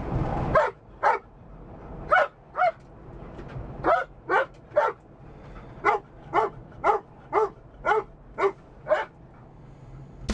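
Weimaraner barking repeatedly inside a moving car: about fourteen short barks, first in pairs and then in a steady run of about two a second, over the low rumble of the car.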